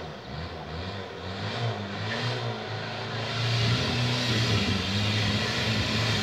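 Off-road 4x4's engine revving unevenly as it works over rough rock, the revs rising and falling and growing louder from about three seconds in.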